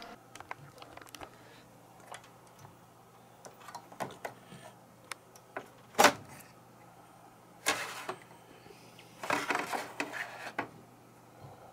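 Handling noises on the back of an HP ProLiant ML350 G6 tower server: scattered clicks and knocks from the metal chassis and cables. The loudest is a sharp knock about six seconds in, followed by a rattling clatter around nine to ten seconds. A low fan hum runs underneath, after the fans' higher whine drops away right at the start.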